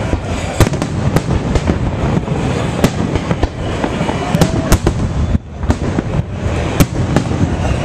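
Fireworks display: aerial shells bursting in rapid succession, a dense run of sharp bangs over a continuous rumble, with a brief lull about five and a half seconds in.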